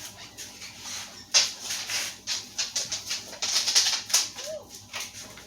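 A dog moving about on its way to the door, making an irregular run of light clicks and rattles, like claws on a hard floor and jingling collar tags.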